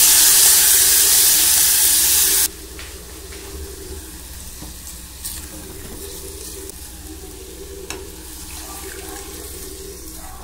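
Rice frying with garlic in hot olive oil, a loud sizzling hiss that cuts off sharply about two and a half seconds in. After that only a quieter steady hiss with a few light clicks and knocks.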